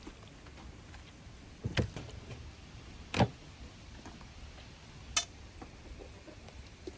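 Three sharp knocks over a low background, about a second and a half to two seconds apart; the first two have a dull thud beneath them.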